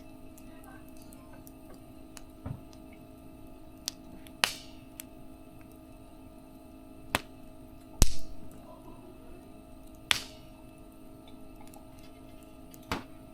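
Wood fire crackling: sharp, irregular pops of burning wood, the loudest about eight seconds in, over a steady faint hum.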